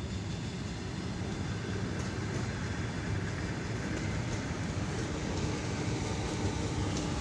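ER9M electric multiple unit pulling into a station past the platform: a steady low rumble of wheels and running gear with occasional light clicks over the rails. A steady tone comes in about four seconds in.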